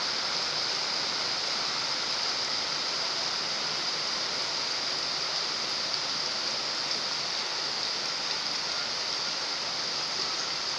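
Steady rain falling on a pond, drops pattering on the water and lily pads in an even hiss.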